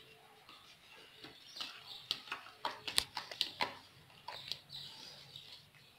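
Plastic spoon stirring a mixture of white glue and paint in a plastic bowl, faint, with scattered light clicks and scrapes of the spoon against the bowl.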